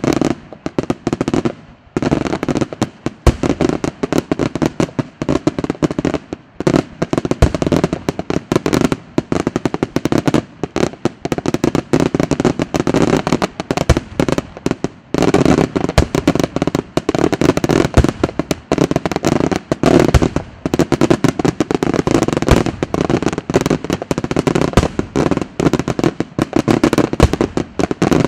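Daytime aerial fireworks shells bursting in a dense, rapid barrage of bangs and crackling reports. There are brief lulls near the start and about halfway through.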